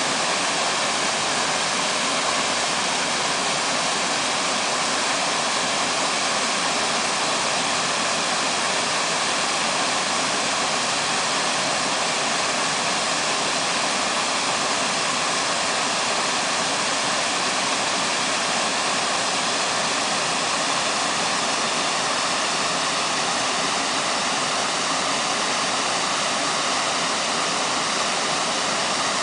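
Waterfall: water pouring and splashing in a steady, unbroken rush that stays even throughout.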